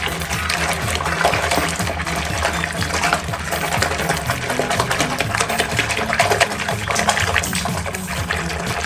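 Soapy water sloshing and splashing as a soft plush toy is scrubbed by hand in a filled sink.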